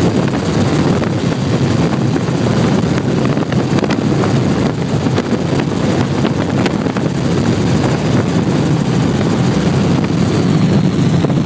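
Helicopter in flight heard from inside its cabin: a loud, steady drone of rotor and engine.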